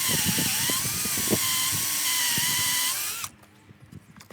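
Electric drill running and boring into a wooden disc, a steady motor whine that wavers slightly under load, then stops about three seconds in.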